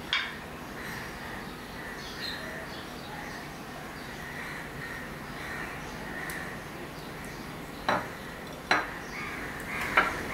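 A few sharp clinks of tableware: a plastic curry bowl knocking against the plate and the glass tabletop as curry is tipped onto rice, three of them close together near the end. Crows cawing in the background throughout.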